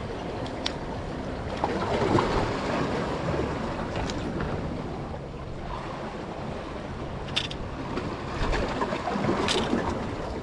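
Wind buffeting the microphone over surf washing on the shore, with a few sharp clicks scattered through it.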